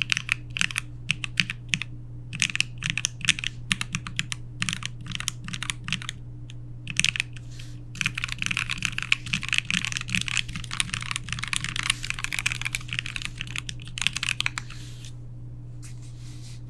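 Typing on a custom mechanical keyboard, an E-White Sunsetter R1 with lubed Marshmallow switches on a stainless steel plate with Poron plate foam and ePBT keycaps. Uneven keystrokes give way to a fast dense run of typing in the middle, then the keys fall silent near the end.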